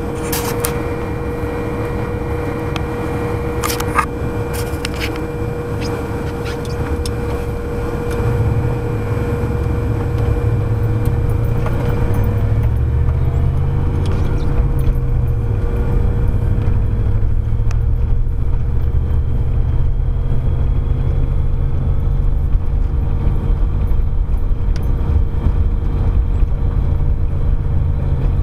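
Inside the cab of a GMC pickup with a 305 V8 driving on a packed-snow road: a steady low engine and tyre drone that grows louder about eight seconds in. A single knock about four seconds in.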